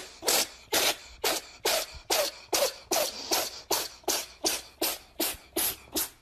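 Rhythmic short, breathy huffs, about two and a half a second, each sharp and hissy with a slight squeak in it, repeating evenly.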